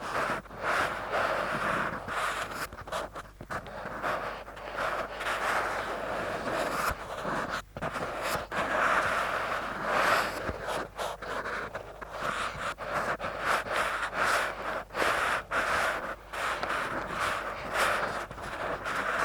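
Tawashi scrub brush scratching and rasping close against the microphone, imitating an ear cleaning heard from inside the ear: an uneven, continuous bristly scratching with many short breaks.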